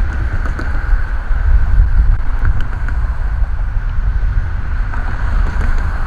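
Wind buffeting the microphone, an uneven low rumble, over a steady outdoor background hiss.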